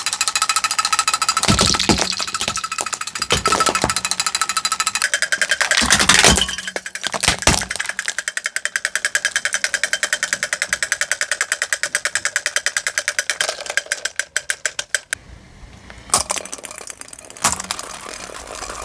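Plastic toys cracking under a car tyre, several sharp cracks over a fast, steady clicking rattle with a ringing tone. The rattle grows quieter about six seconds in and stops about fifteen seconds in, followed by two more cracks.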